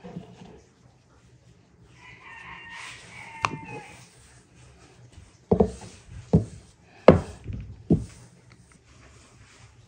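A rooster crows once in the background, about two seconds in. Then a long wooden rolling pin knocks four times against a wooden dough board as a thin sheet of dough is unrolled and laid flat.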